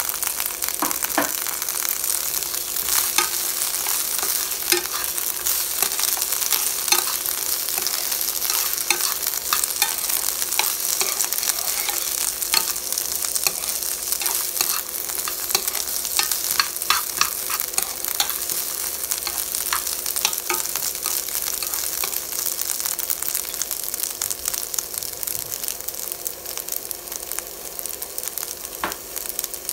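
Cut yard-long beans and garlic sizzling in hot oil in a nonstick frying pan, stirred with a plastic spatula that scrapes and clicks against the pan. The sizzle eases a little near the end.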